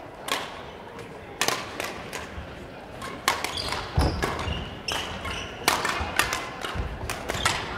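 Badminton rally: racquets striking the shuttlecock in sharp cracks about once a second, with players' footsteps thudding on the wooden sports-hall floor between hits.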